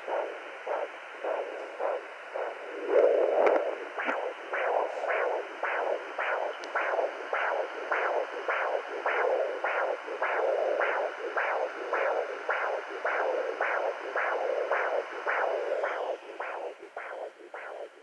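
Pocket fetal doppler's loudspeaker playing a heartbeat as rhythmic whooshing pulses, about two a second, weakening near the end. The user is unsure whether it is a baby's heartbeat; the display reads about 104 to 127 beats a minute.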